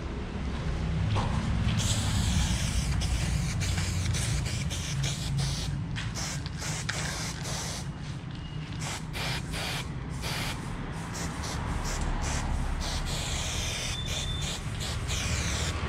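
Aerosol spray-paint can hissing as paint is sprayed onto a wall, starting about two seconds in and going on in bursts broken by many short pauses.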